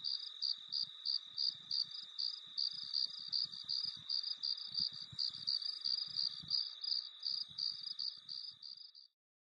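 Crickets chirping in a steady, even pulse of high chirps, about three to four a second, cutting off suddenly near the end.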